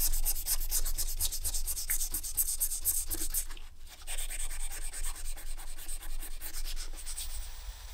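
Sandpaper rubbed quickly back and forth over a small aluminium end cap, about five or six scratchy strokes a second. The strokes stop briefly about halfway through, then resume and die away near the end.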